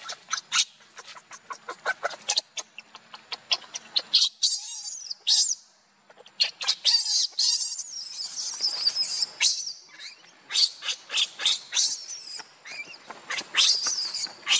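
Baby monkey giving high-pitched, wavering distress squeals and screams while its mother holds it down, with many short clicks and taps between the cries and a brief pause about six seconds in.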